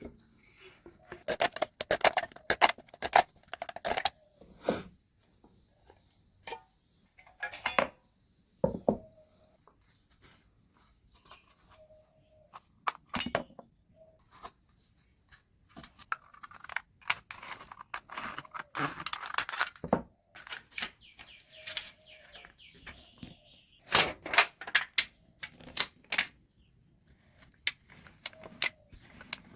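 Aluminium drink cans being handled and worked by hand: irregular metallic clicks, taps and crinkling scrapes in clusters, with quiet gaps between them.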